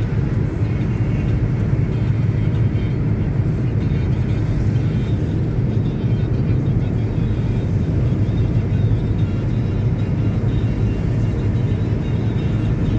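Steady car engine and road noise heard from inside a moving car's cabin, a constant low drone with no breaks or changes.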